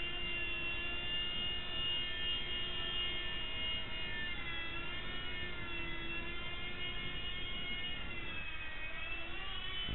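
E-flite Blade mSR micro RC helicopter in flight: its small electric motors give a high whine that bends down and back up several times as the throttle changes, over a steady low rush of rotor noise.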